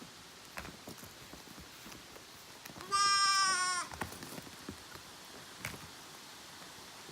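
A goat bleating once, loudly, for about a second, about three seconds in, with a few faint knocks before and after.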